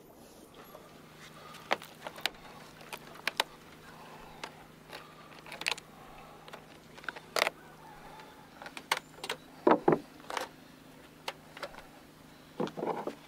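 Irregular metallic clicks and clinks of wire and wire mesh being handled and twisted shut around a large fish, loudest a little past the middle, over a faint steady low hum.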